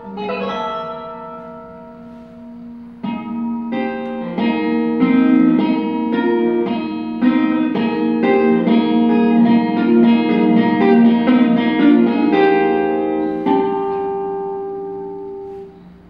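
Double-neck electric guitar playing a phrase of ringing notes. A few notes at first, then a dense run of notes from about three seconds in, ending in a held chord that fades away near the end.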